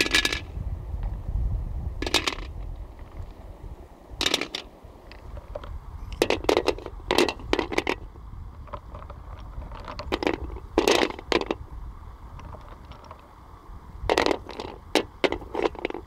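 Flat river stones set one by one into a large metal wok, each landing with a clack and scrape of stone on metal and on other stones. About a dozen placements, some single and some several in quick succession.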